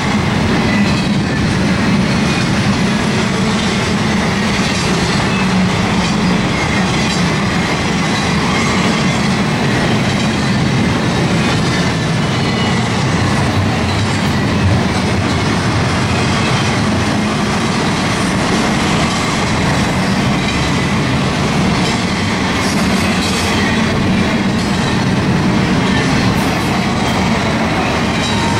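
Union Pacific double-stack intermodal freight cars rolling past, a steady noise of steel wheels on the rails.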